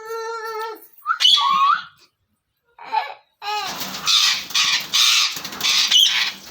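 Ring-necked parakeet calling. It gives a held whistle-like note and a few short gliding calls, then from about three and a half seconds in a run of loud, harsh, pulsing screeches.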